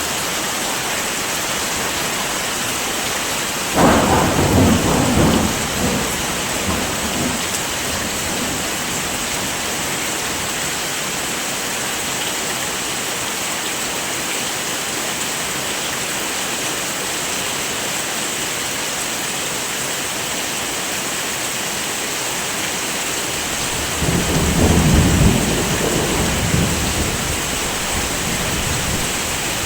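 Heavy rain falling steadily, with two low rolls of thunder, one about four seconds in and another near the end, each lasting a few seconds.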